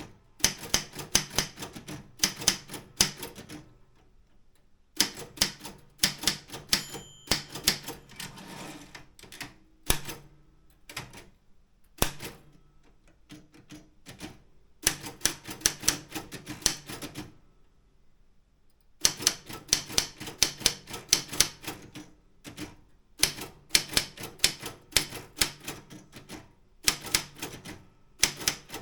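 Optima M16 manual office typewriter being typed on: quick runs of sharp keystrikes in bursts of a few seconds, broken by short pauses, with a brief ringing tone about seven seconds in.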